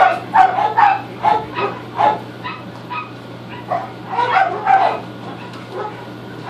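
A pet animal giving a rapid run of short, high-pitched yips or mews, several a second, with a pause around the third second, over a steady low hum.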